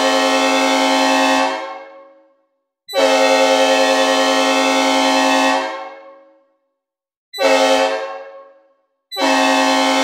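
Synthesized recreation of a Nathan P5 "old cast" five-chime train air horn sounding a steady chord in the long–long–short–long crossing pattern. One long blast is already sounding, a second starts about three seconds in, a short one comes near seven and a half seconds, and a last long blast begins about nine seconds in. Each blast trails off in reverb.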